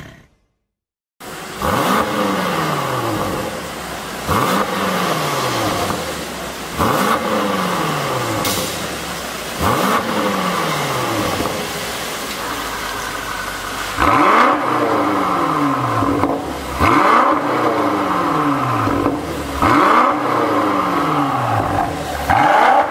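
BMW X6M Competition's twin-turbo V8 through a Fi valvetronic performance exhaust, blipped in short free revs about every two and a half seconds, each falling back to idle. After about a second of silence at the start, it idles steadily between blips, and the blips in the last third are louder, with the exhaust valves open.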